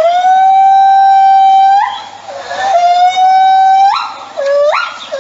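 A small young animal crying in loud, high, drawn-out cries: two long held cries of nearly two seconds each, each rising in pitch at the end, then shorter rising cries near the end.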